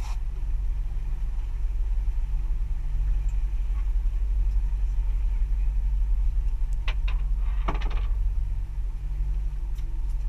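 Fishing boat's engine running with a steady low rumble, with a few sharp clicks and a brief clatter about seven to eight seconds in.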